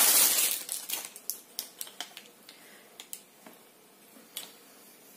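Clear plastic packaging rustling loudly as a garment is pulled out of it. After about a second it gives way to scattered sharp crinkles and ticks that die away.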